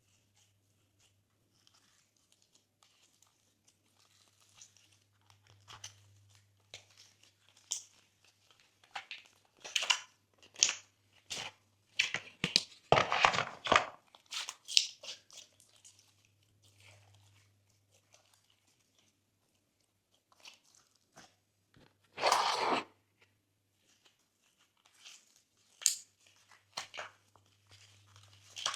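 Glossy slime being mixed, with irregular crackles and clicky pops and two longer, louder squishy bursts, one near the middle and one about three quarters through.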